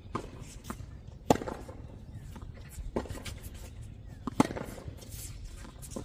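Tennis balls struck with rackets during a rally: two sharp, loud hits about three seconds apart, with fainter ball strikes and bounces on the hard court between them.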